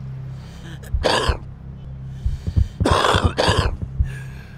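A smoker's cough: one hacking cough about a second in, then two more in quick succession around three seconds in. It is presented as the sign of damaged lungs.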